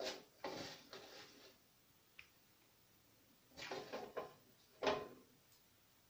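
Quiet kitchen handling sounds: a few short knocks and rustles as hands arrange pieces of cheese on a plate of chilaquiles, in two small clusters, the louder one just before the end.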